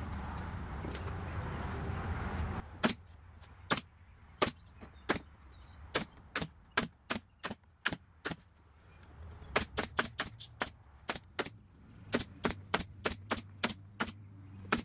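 Pneumatic upholstery staple gun driving staples through black fabric into plywood: a long run of sharp single shots, roughly two a second, with a brief pause about halfway. A steady hum stops about two and a half seconds in, just before the first shot.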